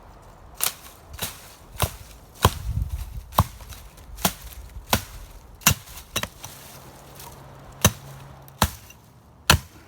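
Axe chopping branches off a dried-out Christmas tree: about a dozen sharp blows at an uneven pace, roughly one a second or a little faster.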